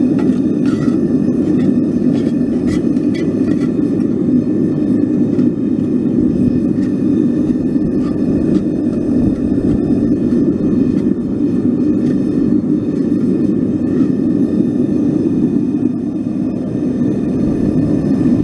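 Propane gas burner running steadily under a pan of roasting crushed ore, a dense low rushing noise. Light scraping and tapping from stirring the ore in the enamel pan in the first few seconds.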